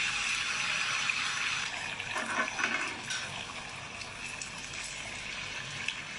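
Kitchen tap running in a steady stream, with something handled under it causing brief splashes and knocks about two to three seconds in.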